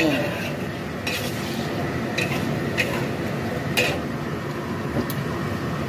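Metal spatula scraping and clinking against a wok while sliced cucumber and fish sausage are stir-fried, over a steady sizzle. About five sharp clinks stand out, spread across the few seconds.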